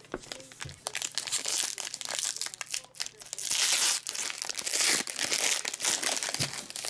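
Foil wrapper of a trading-card pack crinkling and crackling as hands grip it and pull it open, loudest about halfway through.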